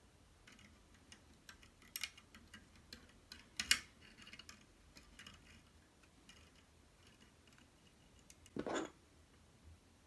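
Light, scattered clicks and taps of small hand tools and materials being handled at a workbench, with a sharper click about three and a half seconds in and a short rustle near the end.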